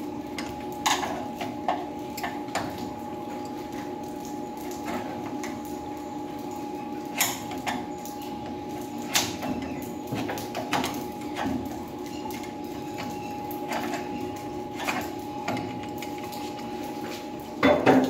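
Scattered metal clicks and clinks as a steel lock body is handled and set against a steel door edge, over a steady hum.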